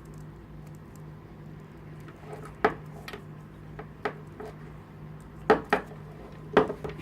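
Metal bit rings and a rein buckle clinking as a rein is fastened to the bottom ring of a horse's bit: about six sharp clinks, starting about two and a half seconds in.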